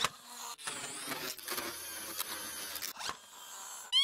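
Cartoon sound effects of a toy claw machine at work: a mechanical whirring and rattling. Near the end comes a quick run of bright, bouncing tones that rise and fall as a capsule drops into the prize chute.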